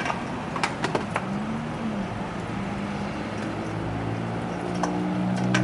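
A motor running with a steady hum that grows louder toward the end, over background street noise, with a few sharp clinks in the first second.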